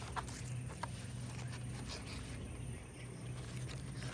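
Cardboard packaging and a paper manual being handled: a few light taps and rustles over a steady low hum.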